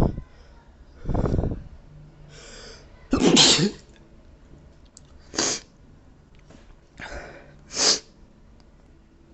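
A person sneezing over and over in an allergy sneeze fit: loud, sharp sneezes about every two seconds, with quick breaths drawn in between.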